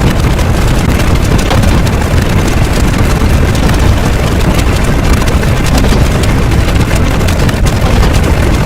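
Loud, steady rumbling roar of noise, heaviest in the low end, with no clear pitch.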